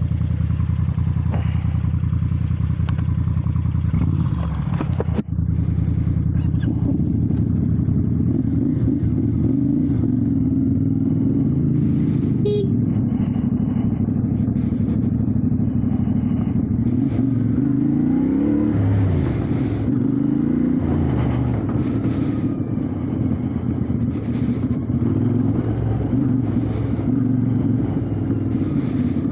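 Motorcycle engine running: even for the first few seconds, then under way with its pitch rising and falling as it revs, with occasional knocks.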